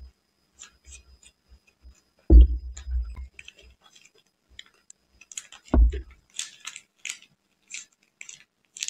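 Close-miked eating sounds: soft chewing and small wet clicks, broken by two heavy low thumps about two and a half and six seconds in. Near the end comes a run of crackly clicks as a soft sponge cake is torn apart by hand.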